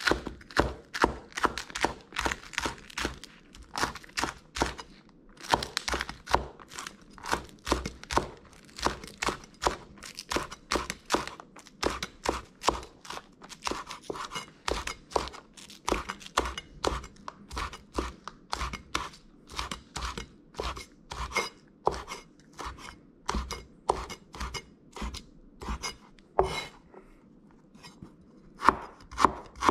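Chinese cleaver chopping green onions on a wooden cutting board: a steady run of sharp knocks, about three a second, with a brief pause near the end.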